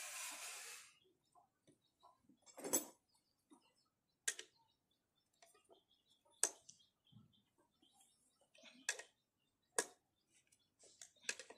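Sparse, irregular clicks and knocks of hand tools and metal engine parts being handled during engine assembly, about six in all, with a short rustle at the start.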